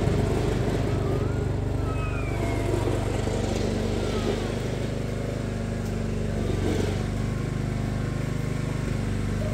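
2006 Craftsman YS4500 lawn tractor's engine running steadily as it drives across the yard pushing its front snow plow blade.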